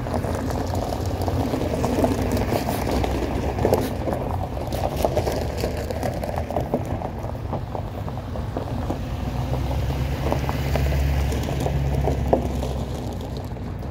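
Wind buffeting the microphone over the low rumble of a box truck's engine, the rumble heavier for a few seconds near the end.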